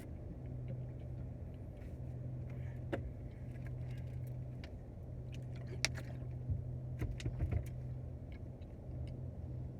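Steady low drone of a car's interior with the engine idling, with a few light clicks and small knocks about 3, 6 and 7 seconds in.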